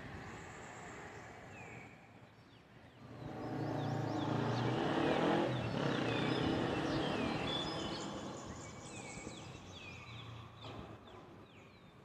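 A vehicle passes, its rumble swelling from about three seconds in and fading by about nine, the loudest sound here. Over it birds give a run of short, repeated down-slurred calls, with a thin high whistle in the first couple of seconds.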